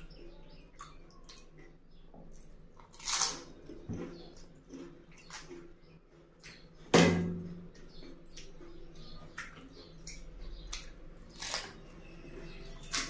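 Close-up eating sounds of pani puri: wet chewing and crunching of the crisp, water-filled puri shells with small mouth clicks, broken by a few louder short bursts, the loudest a sudden one about seven seconds in.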